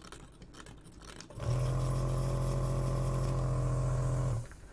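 Vacuum pump of an electric desoldering tool switched on for about three seconds, a steady low buzz with a hiss of rushing air, sucking molten solder off a circuit-board joint; it starts and cuts off abruptly. A few faint clicks come before it.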